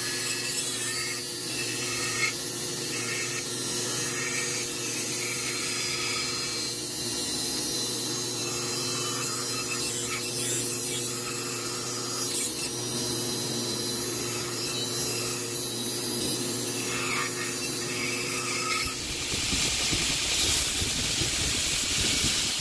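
Bandsaw running and cutting through a block of hardwood, a steady motor hum under the hiss of the blade. Near the end it changes to a belt grinder sanding the wood.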